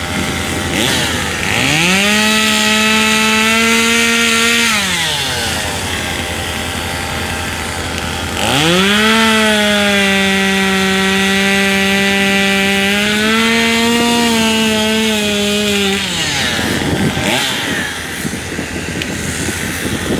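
Chainsaw cutting through a fallen tree's trunk and limbs: the engine revs up to full throttle twice, once for about three seconds and then for about seven, sagging a little in pitch under load, and drops back to idle between and after the cuts.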